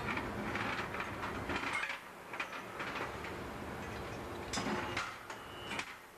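Irregular metallic clanks, clicks and knocks of tools and engine parts being handled, over a steady low machinery hum, during work on a large two-stroke marine diesel engine.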